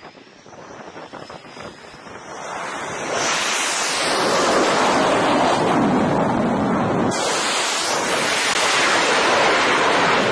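Jet aircraft roar over an aircraft carrier's flight deck, a steady rushing noise that grows louder over a couple of seconds and then stays loud, mixed with wind on the microphone.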